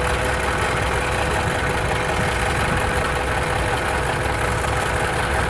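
A running engine's AC compressor heard through a mechanic's stethoscope probed on its back side, the earpiece held to a phone microphone: a steady hum with one faint constant tone, no grinding or clanking in it. This is the sign that the compressor's pulley bearing is not the source of the noise.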